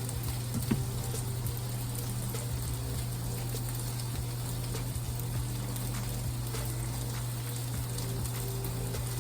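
Sausage links sizzling in a skillet, a steady frying hiss with scattered small crackling pops, over a constant low hum.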